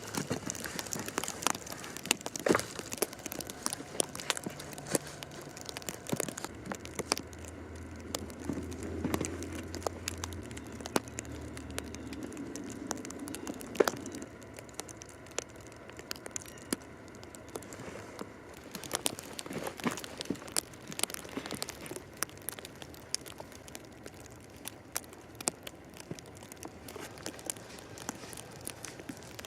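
Irregular crunching and crackling of footsteps in snow and sticks being gathered and handled, with a sharp crack about fourteen seconds in.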